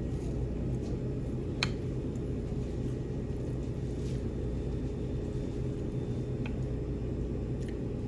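Steady low hum of indoor room tone, with one sharp click about one and a half seconds in and a few faint ticks later.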